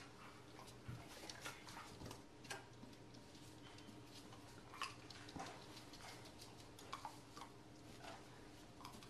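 Near silence with faint, scattered small clicks and rustles of adhesive tape being wrapped around a puppy's ear and ear post.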